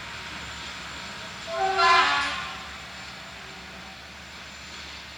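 A diesel locomotive's horn sounds one short blast of about a second, a chord of several tones, over a steady low rumble of railway noise.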